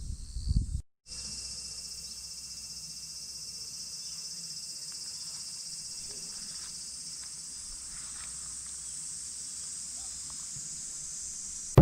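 A steady chorus of insects trilling, high-pitched and unbroken. It opens with under a second of low rumbling noise that cuts off abruptly.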